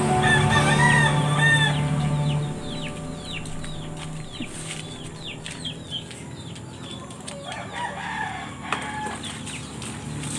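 Chickens: a rooster crows in the first two seconds, then a long run of short, high, falling peeps, with clucking near the end.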